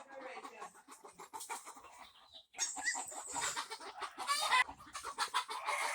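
Chickens clucking, unsettled by a chasing puppy, louder after about two and a half seconds.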